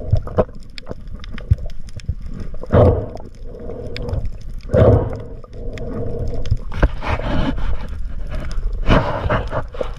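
Underwater noise of a diver swimming, heard through a camera underwater: a steady low rush of water with louder surging whooshes about every two seconds and scattered small clicks.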